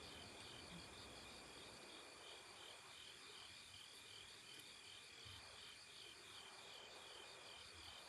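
Faint chorus of crickets chirping in a steady, evenly pulsing rhythm.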